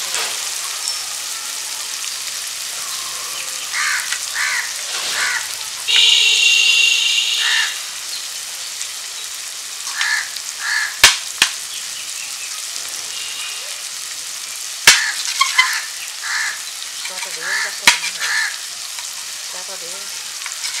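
A metal spatula clicking and scraping on a ceramic plate as fried fish is broken apart, with a few sharp clinks as the loudest sounds. A steady sizzle of frying oil runs underneath, louder for a moment about six seconds in, and crows caw repeatedly.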